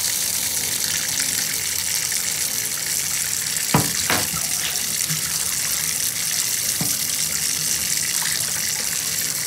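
Bathtub faucet running steadily, the stream splashing into the tub and the water draining freely through the newly installed drain stopper, flowing down just like it should. A couple of brief knocks about four seconds in.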